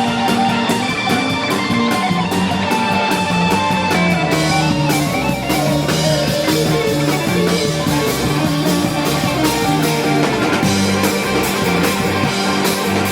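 Live rock band playing an instrumental passage: guitar lines over bass and drum kit, with steady cymbal hits that grow fuller a few seconds in.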